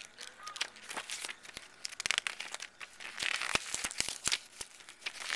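A paper instruction booklet being handled and its pages flipped: irregular rustling and crinkling with a run of sharp clicks, the loudest rustle near the end.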